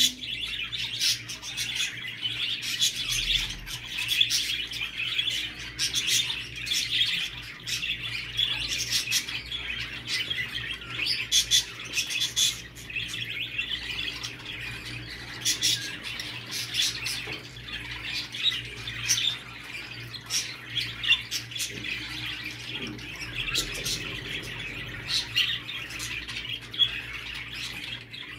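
Budgerigars chattering and warbling without a break: a dense run of quick chirps, clicks and squawks. This is budgie chatter of the kind used to stimulate the males to breed.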